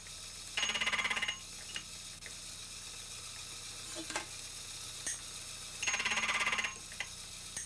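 Milling cutter passing through the brass clock barrel to cut a gear tooth, twice: a short buzzing cut about a second in and another about six seconds in, each under a second. Between the cuts the milling machine runs steadily with a few small clicks.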